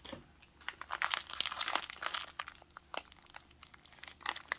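Clear plastic zip-lock bag of air-gun slugs crinkling as it is handled, a scatter of irregular sharp crackles, loudest just before the end.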